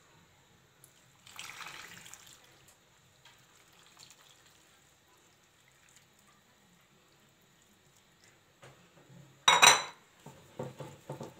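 Broth poured from a glass bowl over stuffed grape leaves in a clay pot: a soft splashing pour about a second in, then only faint liquid sounds. Near the end, a sharp clink of the glass bowl set down on the countertop, followed by a few small knocks.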